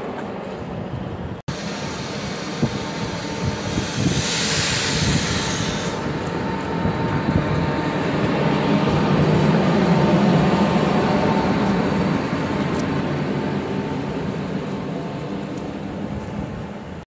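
NS Class 1700 electric locomotive passing slowly on its own. Its motor whine and hum grow louder to a peak about ten seconds in, then fade as it moves off. A loud hiss lasts about two seconds, around four seconds in.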